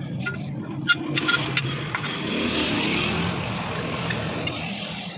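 Socket wrench on a long extension turning a bolt in a brake drum's hub: a few sharp metal clicks, then a fast steady rasping ratchet sound for most of the time.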